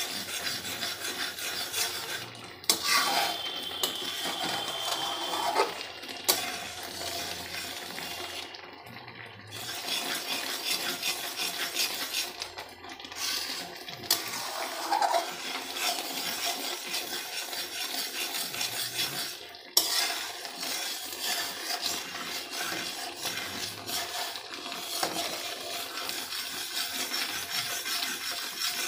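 Spatula stirring and scraping thick, bubbling milk around a metal kadai, with a few brief pauses. The milk is being reduced to a grainy kalakand mixture.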